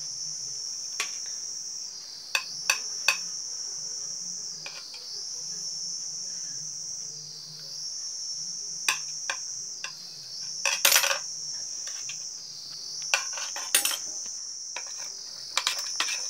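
A steady, high-pitched chorus of insects, rising and falling slightly in pitch every few seconds. Over it, a metal spoon clinks and scrapes against a plate of noodles a dozen or so times, the loudest cluster about halfway through.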